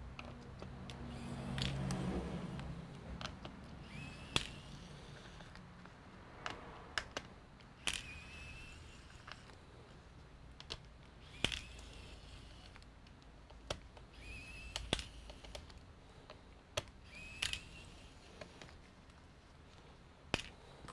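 Small tools and screws clicking and tapping during laptop disassembly, scattered throughout, with four brief, slightly rising whirs of a small motor.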